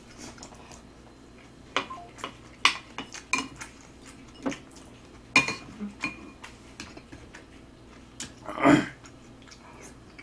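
Spoon clinking and scraping on a flat griddle pan and dishes while scooping food, heard as scattered sharp clicks, with a longer, louder sound near the end.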